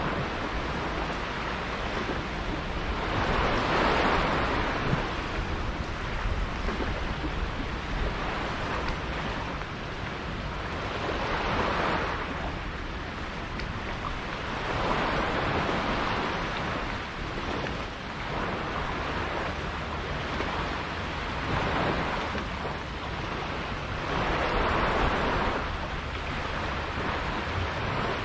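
Sea water rushing and splashing, swelling and fading in irregular surges every few seconds, with wind on the microphone.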